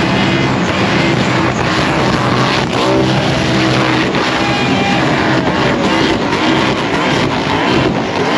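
Car engine revving hard, loud and continuous, its pitch rising and falling, as during a burnout.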